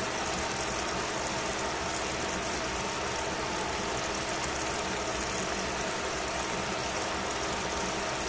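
Bean sprouts and vegetables cooking in a stainless steel pot on the stove: a steady hiss of sizzling and steaming, with a faint steady hum under it.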